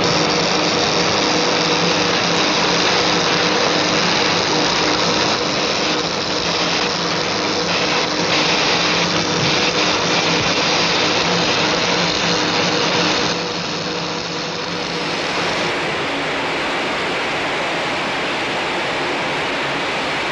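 Loud industrial factory din: dense mechanical clatter with a steady hum. About fourteen seconds in it gives way to a steady, loud rushing hiss, loud enough to make a man cover his ears.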